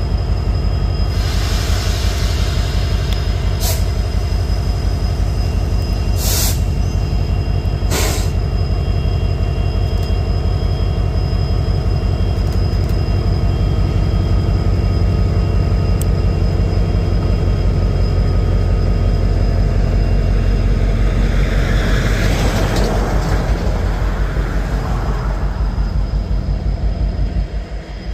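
EMD SD70M diesel-electric locomotive's two-stroke V16 engine running with a steady, loud low rumble. A hiss comes about a second in, short sharp sounds follow at about four, six and eight seconds, and a louder noisy stretch comes later as the train draws ahead.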